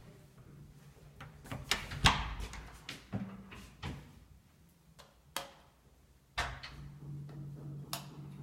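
Irregular knocks and bangs, seven or so, the loudest about two seconds in. A low steady hum comes in about two-thirds of the way through.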